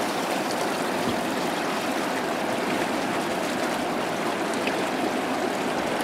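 Steady rush of a fast mountain river flowing past the bank, an even hiss of water with no distinct events.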